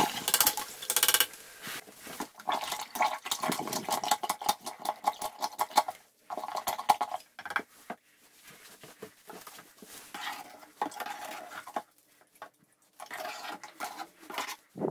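Toilet water gurgling and sloshing in the bowl and trap in irregular spurts, with short pauses, as the toilet is plunged to force water through the trap and lower the water level in the bowl.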